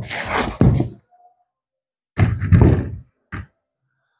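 Cardboard boxes and packaging being handled on a plywood workbench: dull thuds and knocks in two bunches, one at the start and one about two seconds in, with a single short knock just after.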